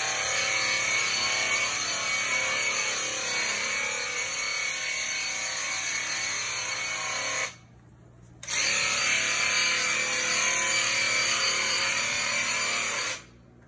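Clorox Total 360 electrostatic sprayer running, a steady motor whir with the hiss of the disinfectant mist. It stops for about a second midway, starts again, and cuts off shortly before the end.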